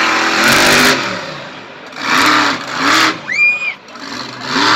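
Monster truck engine running hard, then blipped in three short revs, each rising and falling in pitch. A brief high whistle-like tone cuts in between the second and third revs.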